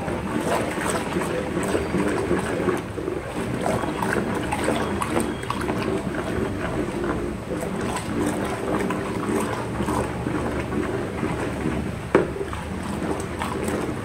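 Carbopol-and-water mixture sloshing and churning steadily as a long pole stirs it in a plastic bucket, with one sharp knock of the pole against the bucket near the end.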